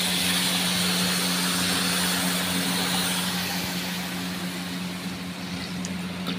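Hot milk poured onto vermicelli fried in ghee in a hot karahi, sizzling and hissing with steam. The hiss fades over the last few seconds, and a steady low hum runs underneath.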